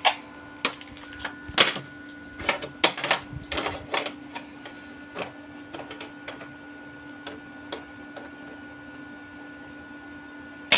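Irregular sharp clicks and light knocks from work on small parts, most of them in the first five seconds, then sparser, over a steady electrical hum.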